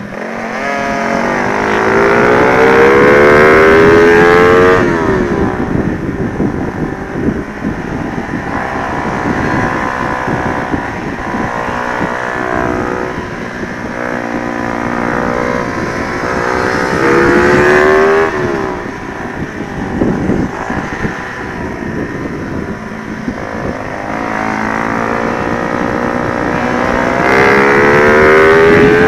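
Honda Sonic 125 motorcycle with a swapped-in 150cc engine running hard on track. Three times it revs up in long pulls whose pitch climbs steadily, then drops off sharply as the throttle is shut, with lower, uneven running in between. Wind buffets the microphone throughout.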